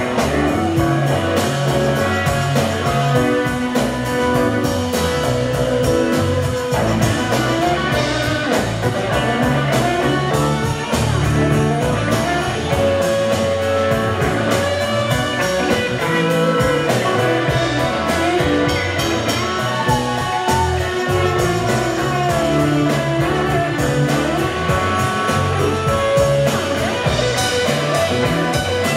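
Live rock band playing an instrumental jam: electric guitar lines over bass guitar and drum kit.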